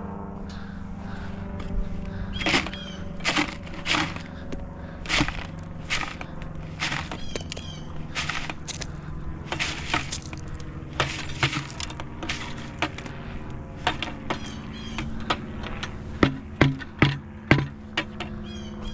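Leftovers being broken up and handled for chickens: irregular sharp cracks and snaps, one or two a second, over a steady low hum, with a quick run of louder knocks near the end.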